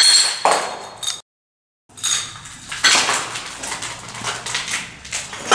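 Footsteps crunching over shards of a smashed porcelain toilet, the broken pieces clinking and scraping against each other in an uneven run, with a brief total cut-out of sound about a second in.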